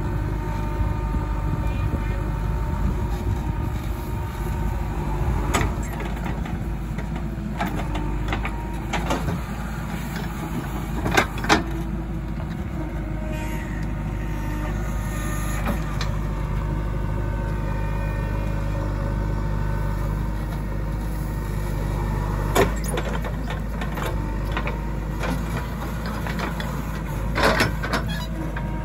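JCB 3DX backhoe loader's diesel engine running steadily while the backhoe digs. A few sharp knocks stand out, two close together about eleven seconds in and more near the end.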